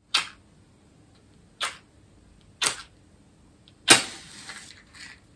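Match being struck against its box to light a candle: three short scrapes that fail, then a fourth, the loudest, about four seconds in, that catches and flares with a hiss lasting about a second.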